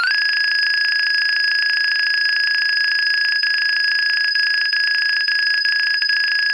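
Nokia 2300 playing a monophonic ringtone through its small speaker: one high, buzzy electronic tone held steady, with a few faint ticks in the second half.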